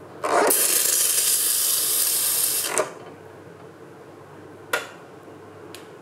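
Steam wand of a De'Longhi manual espresso machine being purged: a loud hiss of steam that starts with a brief sputter, runs about two and a half seconds and cuts off, clearing milk from the wand. One short sharp burst follows about two seconds later.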